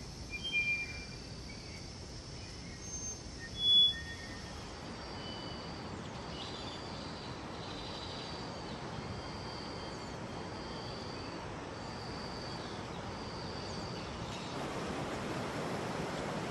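Tropical forest ambience: short high wildlife chirps and whistles, the loudest a sharp chirp about four seconds in, then a high call repeated about every second and a quarter. Near the end a steady rush of river water swells up.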